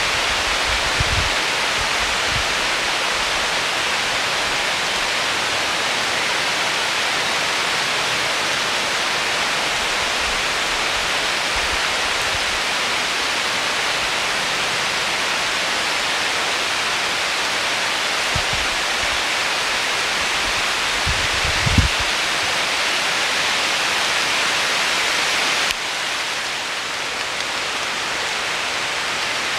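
Heavy downpour: a steady hiss of rain pouring onto woodland. A couple of brief low thumps, gusts buffeting the microphone, come in the second half, and the level steps down slightly near the end.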